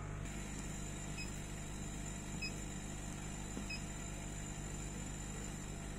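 Steady low electrical hum of a CO2 laser cutting machine standing powered up, with a faint high whine and three faint short beeps about a second apart.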